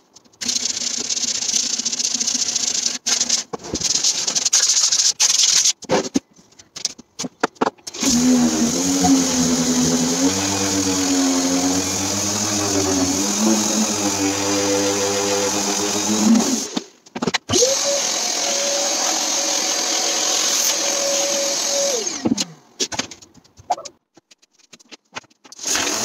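Electric sanders running on bare wood: a motor's hum sags and rises in pitch as the sander is pressed into the surface, over a steady abrasive hiss. Later a higher steady motor whine falls away as a sander switches off, in short clips with abrupt breaks between them.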